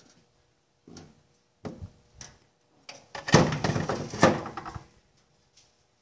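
Handling knocks and clatter of an electric drill fitted with a 13 mm socket against the metal and plastic base of a washing machine's drive mechanism: a few short knocks, then a louder stretch of clatter about three seconds in.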